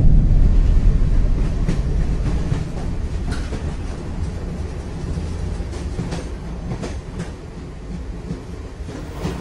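Rumble of a moving train heard from inside the carriage, coming in suddenly and loud, then slowly easing off, with scattered clacks of the wheels over the rail joints.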